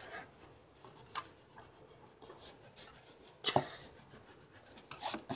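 Eraser rubbing on sketchbook paper in short, faint strokes, with a louder stroke about three and a half seconds in and a few more near the end.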